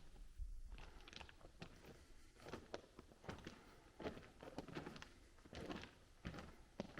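Faint footsteps on the tunnel floor, an irregular walking pace of about two steps a second.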